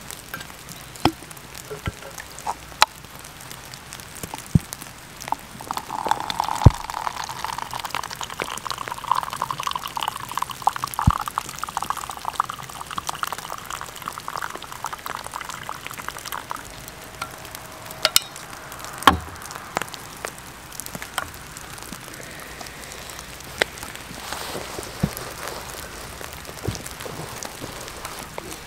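Hot tea poured from a stainless vacuum flask into a paper cup, a steady pour starting about five seconds in and lasting about ten seconds. Sharp clicks from handling the flask's lid come before the pour and again a couple of seconds after it.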